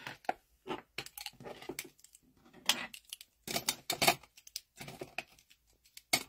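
Small objects being handled on a desk: irregular light clicks, knocks and clinks as pens, makeup brushes and a glass holder are picked up and set down.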